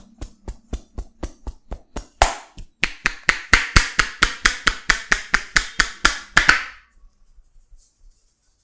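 Rapid rhythmic slaps of a barber's percussive hand massage, about four to five strikes a second, becoming louder about three seconds in and stopping shortly before the end.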